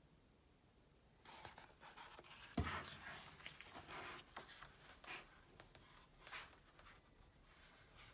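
Pages of a hardback photo book printed on 170 gsm uncoated paper being flipped by hand. Starting about a second in, there is a string of paper rustles and flaps, with a soft thump about two and a half seconds in.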